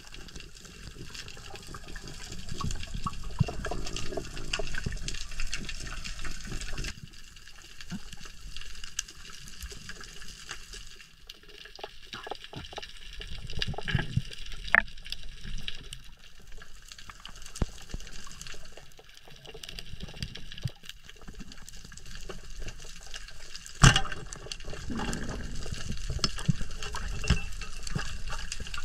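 Underwater ambience heard through a diving camera's housing: water movement with scattered clicks and crackles, and one sharp knock near the end.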